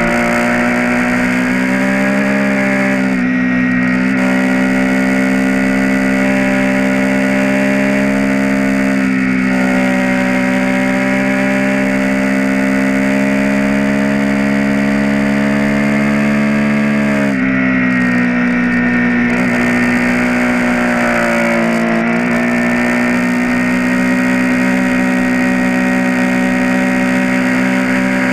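Triumph Street Triple R's three-cylinder engine running hard at high revs on track, its pitch climbing in the first few seconds and dipping briefly a few times, with wind rushing over the onboard camera.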